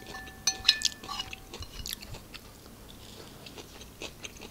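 A metal fork clinks and scrapes on a porcelain plate in the first second, and the plate rings with a clear steady tone. After that comes quiet chewing of a mouthful of quinoa salad, with small wet mouth clicks.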